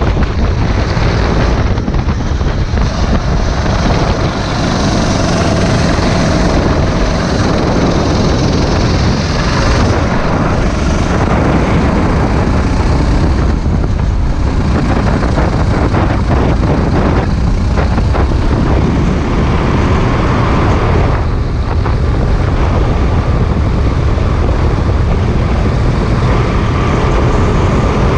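Sodi RT8 rental kart's engine running at racing speed, its pitch rising and falling through the corners, with wind rushing over the onboard microphone.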